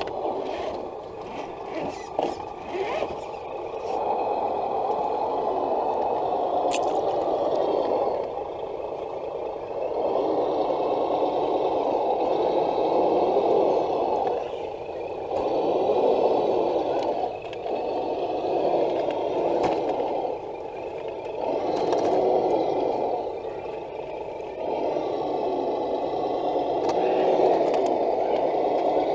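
Scale RC crawler trucks' electric motors and geared drivetrains whirring in stretches of a few seconds, with small ticks and scrapes as the trucks crawl over rock.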